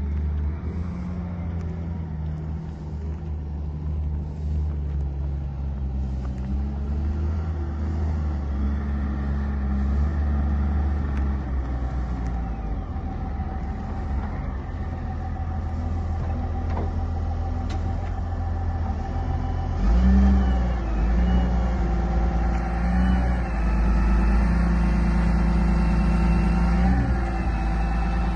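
Diesel engine of a CAT 924H wheel loader running steadily while working, revving up about twenty seconds in and staying at the higher speed.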